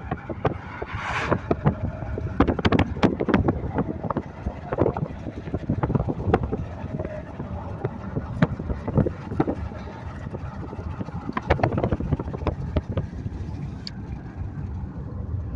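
Car driving, heard from inside the cabin: a steady low road and engine rumble with many sharp clicks and knocks scattered throughout.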